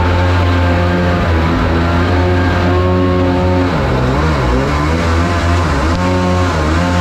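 Supercharged mini jet boat engine running hard at high revs. About four seconds in the revs drop and climb back, with a smaller dip near the end.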